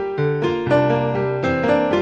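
Background music played on a keyboard: a steady run of struck notes and chords.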